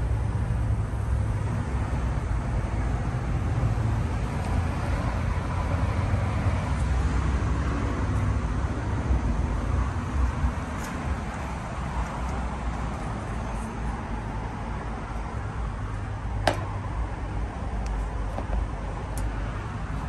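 A 1989 Carrier TECH2000 5-ton, three-phase air conditioner condensing unit running: a steady low hum with the air noise of the condenser fan. A single sharp click sounds late on.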